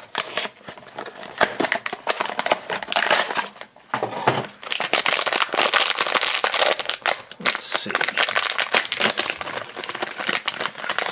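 Cardboard blind box handled and opened, then, from about four seconds in, a foil blind bag crinkling and tearing open by hand in a dense run of crackling.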